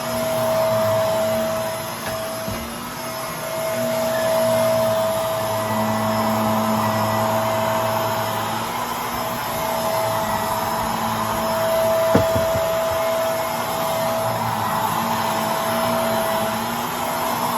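Vacuum cleaner running steadily with a constant motor whine, its level swelling and easing a little. A small click about twelve seconds in.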